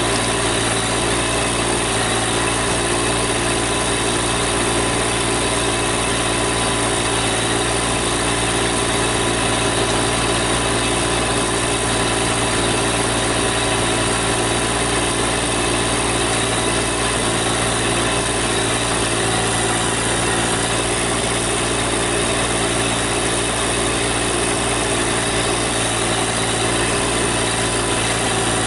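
GC1710 compact tractor's diesel engine running steadily at an even speed.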